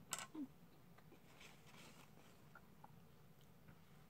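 Near silence at a meal table. There is one sharp click just after the start, then faint ticks and soft rustles of eating and of a paper food wrapper being handled.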